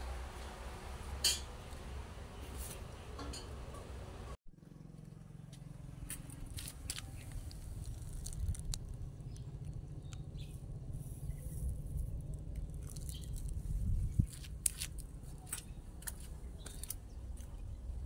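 Low rumble of a phone being handled and carried, with scattered light clicks and taps; the sound cuts out for a moment about four seconds in.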